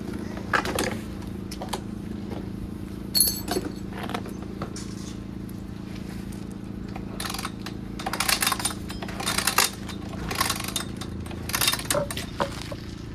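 Aerosol brake cleaner sprayed in short hissing bursts, about seven of them and most in the second half, to flush dirt out of a two-stroke dirt bike's crankcase. A steady low hum runs underneath.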